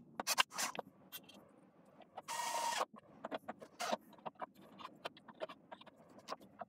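A cordless drill/driver runs briefly, about half a second, a little over two seconds in, driving a screw into a magnetic base. Around it come scattered light clicks and knocks as the wooden featherboard jig is handled and set down on the bandsaw's metal table.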